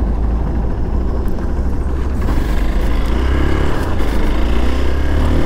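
Motorcycle running at road speed: a steady low rumble with the engine note rising a little around the middle.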